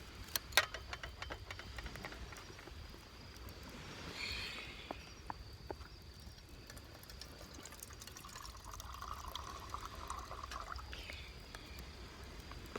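Water being poured, in two pours: a short one about four seconds in and a longer one from about eight to ten and a half seconds in, with a few clicks of handling near the start. The water is being readied for heating.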